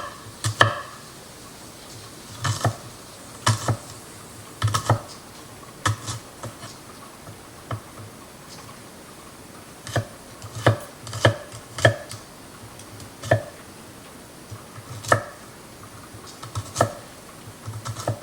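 Knife chopping onions on a cutting board: irregular sharp knocks, some single and some in quick clusters of two or three, with short pauses between.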